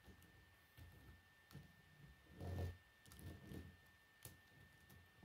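Faint clicks and handling noises of plastic K'nex rods and connectors being fitted together, with a louder low bump about halfway through.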